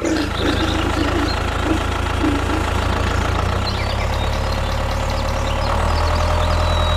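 Mini tractor's small engine running steadily, powering the water-well drilling rig.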